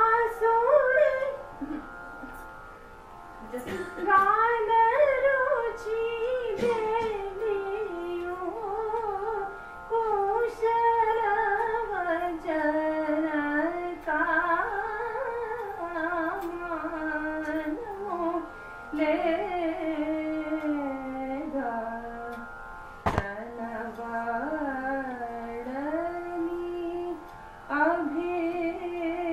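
Solo Carnatic vocal singing, a richly ornamented melody sliding between notes over a steady drone, with a short pause for breath near the start and a single click about 23 seconds in.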